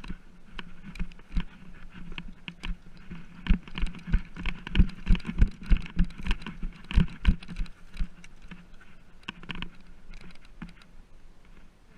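Footsteps picked up through a body-mounted action camera: a run of regular thumps, about three a second, heaviest in the middle, among lighter clicks and rustling.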